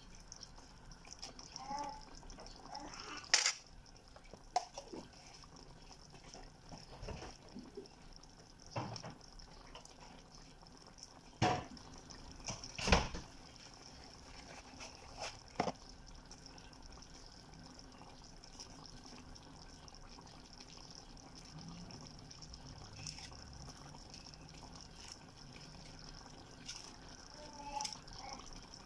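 A pan of chicken stew in tomato sauce simmering with a faint steady bubbling hiss. A wooden spatula stirs and knocks sharply against the pan a few times in the first half, the loudest knocks about three and thirteen seconds in.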